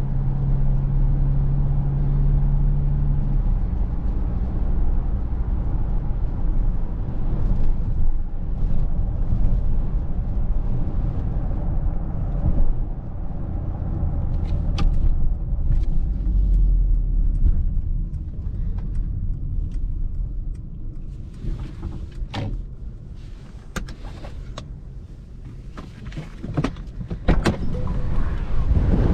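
Cabin noise of a Mercedes-Benz GLC 300de on the move: a steady low drone of the running gear and road. It quietens in the second half as the car slows, with a series of sharp clicks near the end.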